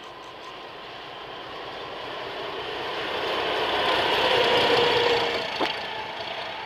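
Pair of coupled ZSSK Cargo diesel locomotives running light, engine and running gear getting louder as they approach and pass, with a steady engine hum at their loudest about four to five seconds in. A single sharp click comes just before six seconds.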